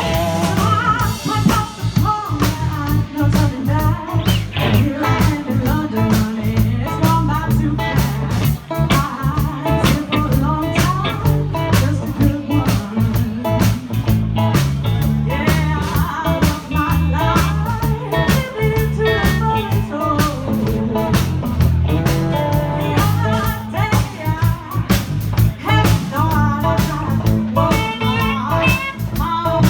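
Live blues band playing an improvised swinging jam: electric guitar over bass and drums with a steady beat.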